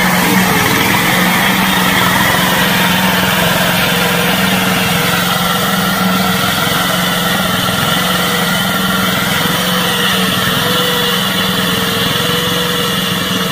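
Small engine of a homemade tracked tank prototype running steadily as the vehicle drives over grass, its note wavering slightly.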